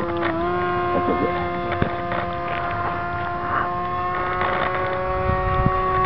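Electric motor and pusher propeller of a Bixler RC plane flying overhead, giving a steady whine that dips slightly in pitch about a third of a second in and rises a little near the end. Wind buffets the microphone in the last second.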